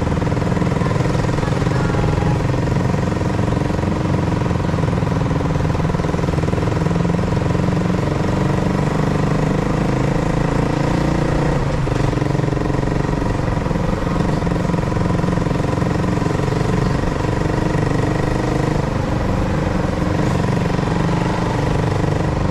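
Honda CBR motorcycle engine running steadily at an even, unchanging pitch.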